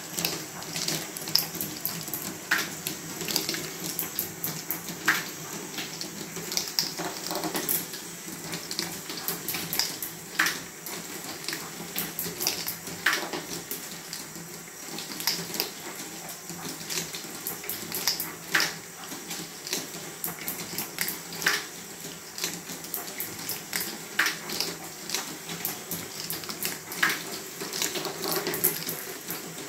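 Steel balls clicking and rattling through a Fischertechnik ball machine: riding the chain and stepped lifters and rolling along plastic tracks, over the steady whir of its electric motor and gears. Louder sharp clicks come every two to three seconds.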